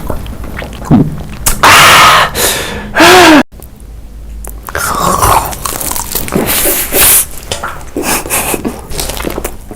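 Close-miked eating: loud crunching bites and chewing, with a short arching pitched sound about three seconds in.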